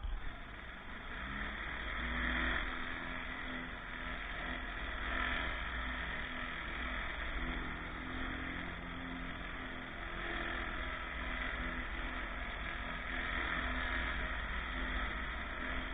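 GVS Pro 30 pressure washer running steadily, its engine hum under the hiss of water spray, swelling slightly now and then.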